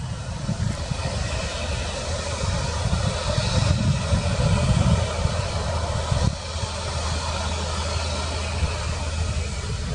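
Jet engines of an Airbus A350 airliner, Rolls-Royce Trent XWB turbofans, running steadily as the aircraft rolls along the ground, heard as an even rushing noise over a low, uneven rumble.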